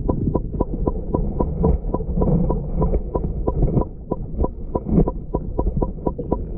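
Underwater sound beneath lake ice: a muffled low rumble with a steady run of sharp clicks, about six or seven a second.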